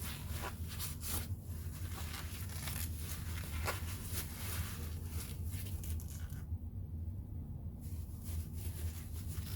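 Paper towel rustling and rubbing in short scratchy strokes, wiping oil off the body of a compact impact wrench, with a brief pause about two-thirds through. A steady low hum sits underneath.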